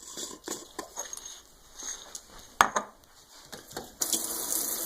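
Light clinks and knocks of a scoop and food bowl as dog food is portioned, with one loud sharp knock about two and a half seconds in. A kitchen tap starts running near the end.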